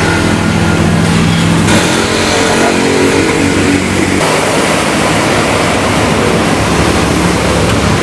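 A motor running with a steady hum, its pitch shifting in steps about two and four seconds in.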